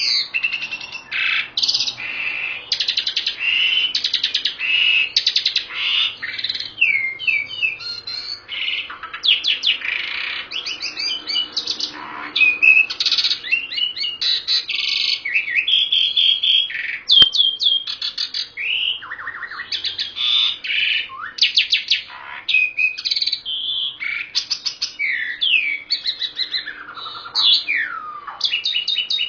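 A Javan pied starling and a white-rumped shama singing, a dense, unbroken stream of loud whistles, fast trills, rattling note-runs and sliding calls. One sharp click about 17 seconds in.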